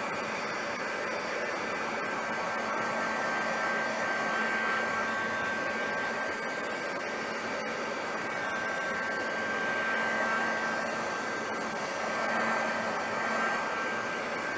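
Handheld craft heat gun blowing hot air steadily, drying a fresh layer of acrylic paint. A thin, steady high whine rides over the rush of air.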